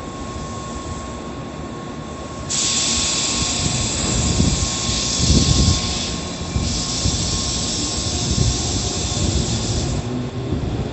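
Tobu 8000 series electric train standing at the platform: a loud steady hiss of air starts a couple of seconds in, breaks off briefly in the middle and stops near the end, with a few low heavy thuds around the middle.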